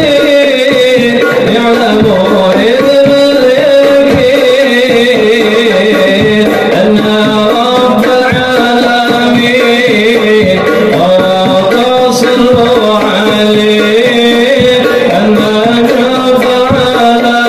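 Hadroh music: sholawat singing over hand-struck frame drums.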